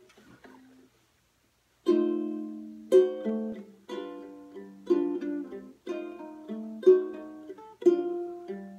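Koa Martin tenor ukulele playing an instrumental intro: chords about once a second, each ringing and dying away, starting about two seconds in after a faint rustle.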